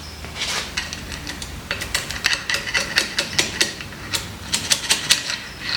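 Steel parts of a Kurt machine vise clicking and clinking in quick, irregular ticks with a faint metallic ring as the lead-screw end is taken apart by hand to get at the thrust bearing.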